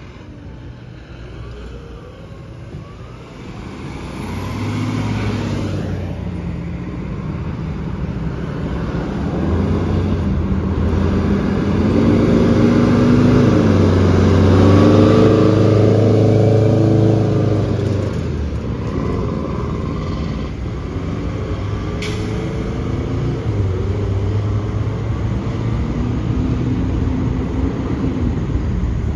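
Fire engine and ladder truck diesel engines pulling away and driving past, revving up through the gears, loudest as the ladder truck goes by about halfway through. A single sharp click comes about two-thirds of the way in.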